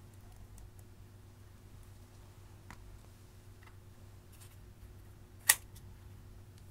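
Makeup items being handled by hand over a glass dish: a few faint taps and clicks, then one sharp, loud click about five and a half seconds in, over a faint steady hum.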